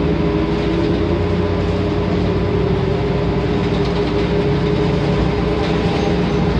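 Cabin sound of a New Flyer XN40 transit bus under way, its Cummins Westport L9N natural-gas inline-six engine running steadily, heard from the rear seats.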